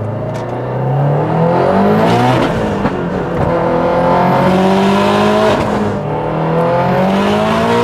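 Subaru WRX STI's built, big-turbo flat-four boxer engine accelerating hard, heard from inside the cabin. Its pitch climbs, drops at an upshift about two and a half seconds in, climbs again, drops at another upshift near six seconds in, and climbs once more.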